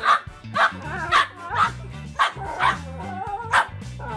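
A dog barking in about seven short, pitched barks over four seconds, over background music with a steady bass beat.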